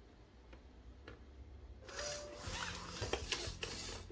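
MarsCat robot cat's joint servos whirring faintly as it turns and shifts its legs, with small plastic clicks, starting about two seconds in.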